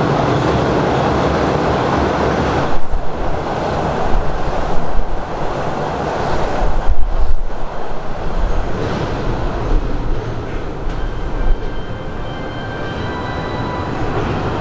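Electric train passing through the station without stopping: a loud, steady rush of wheels and motors for the first few seconds, then uneven, gusty noise with sharp peaks as the cars go by, easing into a quieter rumble.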